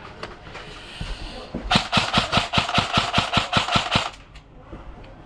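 Airsoft gun firing a rapid, even string of about fourteen shots, roughly six a second, lasting a bit over two seconds, with a few single shots just before it.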